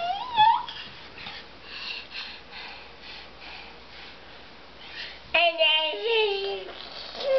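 A toddler's high-pitched vocalizing: a short squealing call at the start, then a louder drawn-out call about five and a half seconds in that falls in pitch.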